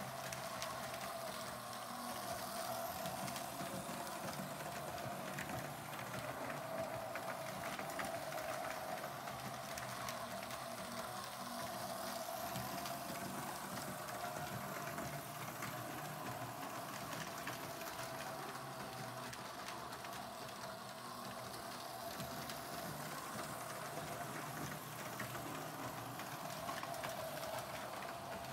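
Lionel postwar Santa Fe F3 diesel model train running on O-gauge tubular tinplate track. Its electric motor and gears give a steady whirring hum, with faint clicks from the wheels passing over the rail joints.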